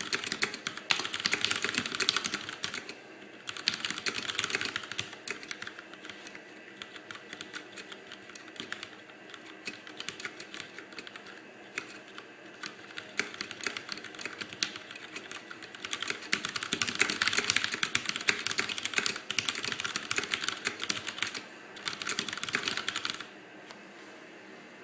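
Fast typing on a CM Storm QuickFire mechanical keyboard with Cherry MX Red linear switches: a dense clatter of keystrokes without a switch click, in louder runs with softer stretches between, stopping shortly before the end.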